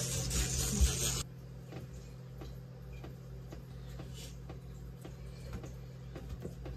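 Electric toothbrush buzzing during brushing, switched off about a second in; then faint rustling and small clicks of cloth being handled.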